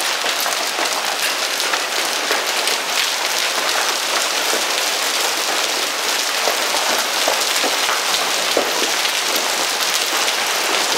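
Heavy hail and rain pelting surfaces, a dense steady clatter with countless small sharp impacts of hailstones, some around 4 to 5 centimetres across.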